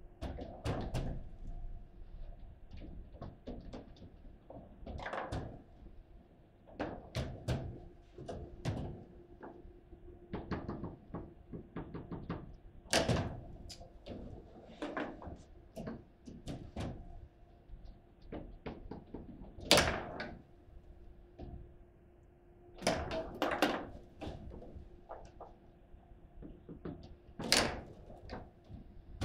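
Table football being played: irregular hard knocks and clacks of the ball struck by the plastic players and the rods being worked, with a few much louder shots, the loudest about 20 seconds in.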